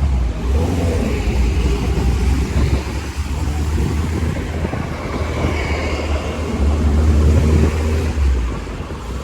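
Modified Maruti Suzuki Gypsy on the move: its engine runs steadily under a low rumble of road noise, growing louder for about a second some seven seconds in.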